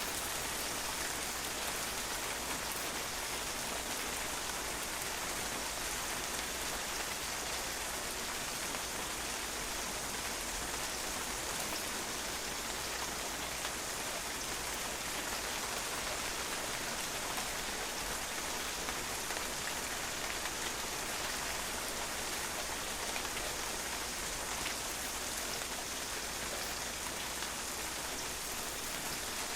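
Steady rain falling, the drops pattering onto a patio in an even, unbroken hiss.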